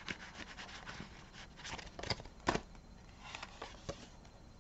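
Paper banknotes and cash envelopes rustling and rubbing as bills are counted and slid into the envelopes by hand, with scattered faint ticks and two sharper ones about two and two and a half seconds in.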